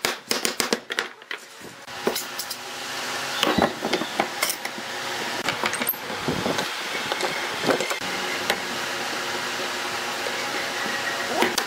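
Quick knocks and clicks, then a motor-driven machine running steadily from about two seconds in, a hiss with a faint hum, with a few knocks over it.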